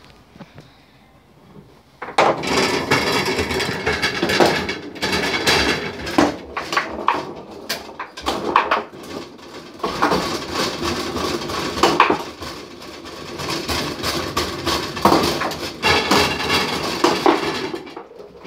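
Foosball table in play: rapid clatter and knocking of the spun metal rods, plastic players striking the ball, and the ball banging against the wooden table walls. It starts about two seconds in and keeps going in dense runs until near the end.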